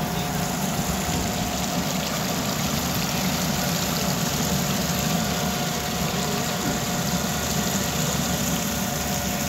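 Mini centrifugal honey moisture-reduction machine running: its electric motor and pump give a steady machine hum with a couple of faint steady tones. The machine is in its water-separation stage, removing water from the honey after the gas bubbles have been cleared.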